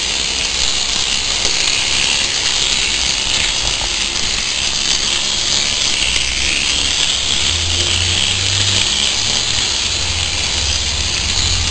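H0-scale live-steam model locomotive running round its track: a steady hiss and whir.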